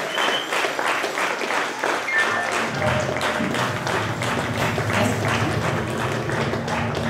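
Hands clapping in a steady beat, about four claps a second, as a live band's song begins. About three seconds in, low bass notes join the clapping.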